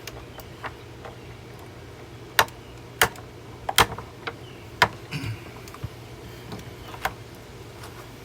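Scattered sharp clicks and cracks, about five or six spread over several seconds, from the plastic body of a Hoover vacuum cleaner being pushed on to break it, over a steady low hum.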